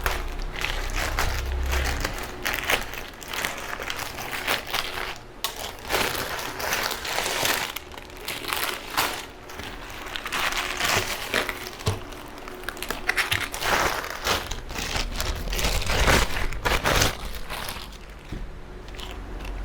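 Packaging crinkling and rustling in bursts as a parcel is unwrapped by hand.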